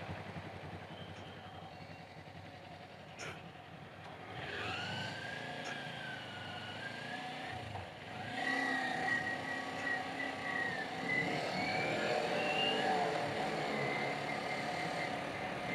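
Sport motorcycle engine running under way, its pitch sliding up and down with the throttle, over a low rumble of road and wind noise. A single sharp click about three seconds in, and a brief drop in level about eight seconds in before the engine rises again and grows louder.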